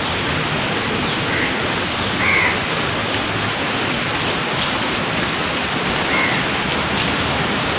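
Steady rushing of stream water, with a crow cawing a few times over it.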